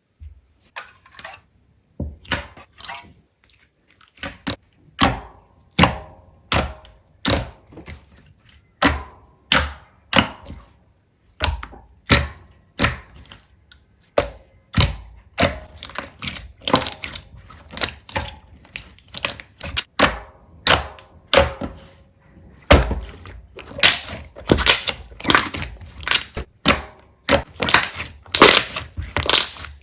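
Slime being pressed and squeezed by hand, giving a series of sharp crackling pops and clicks, about one or two a second.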